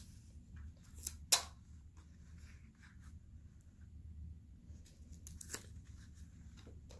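Quiet handling sounds of paper and pipe cleaners being arranged on a card: light rustles and a few clicks, the sharpest about a second in, over a steady low hum.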